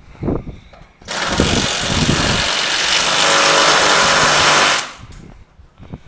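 A power tool runs loud and steady for nearly four seconds, starting about a second in and cutting off shortly before the end, with a few dull knocks near its start.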